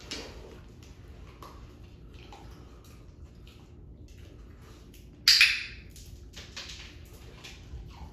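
A dog's paws scratching and tapping on a small stack of wood flooring samples laid on a hard floor, in a run of short scrapes, with one much louder rasping scrape a little past halfway.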